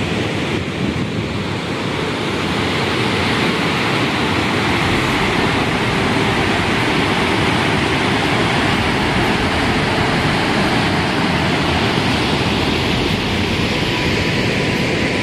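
Steady rush of a mountain waterfall, falling water making a loud, unbroken noise.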